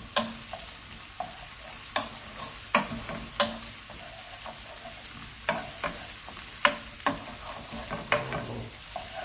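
Wooden spatula scraping and knocking against a nonstick frying pan as diced onion and garlic are stirred, in irregular strokes, over a faint sizzle of the onion sweating in oil.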